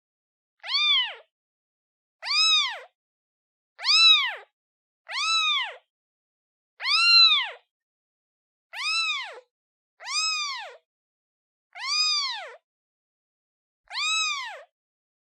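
Newborn kitten meowing for its mother: nine high, clear meows about a second and a half apart, each rising then falling in pitch, with silence between them.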